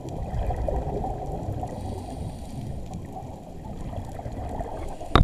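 Underwater ambience heard through a camera's waterproof housing while a scuba diver finns over a reef: a steady muffled low rumble and churn of moving water. A single sharp knock comes right at the end.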